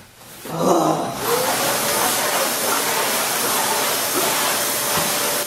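Vacuum cleaner starting up about a second in and running with a loud, steady hiss, then cutting off suddenly at the end.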